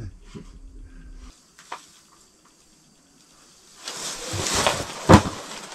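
Rustling and handling noise as an angler grabs and works a bent ice-fishing rod on a strike, with a sharp thump about five seconds in. Before that a low hum cuts off about a second in, leaving it nearly quiet.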